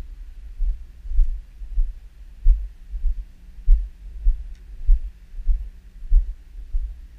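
Wind buffeting the microphone of an onboard camera: low, irregular thumps about twice a second, with a few faint ticks.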